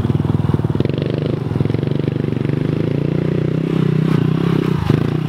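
A 110cc mini dirt bike's single-cylinder four-stroke engine running at low, fairly steady revs.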